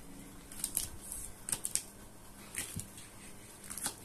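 Kitchen knife chopping large green chillies roughly on a thick wooden chopping board: irregular clusters of crisp cuts and knocks of the blade on the wood.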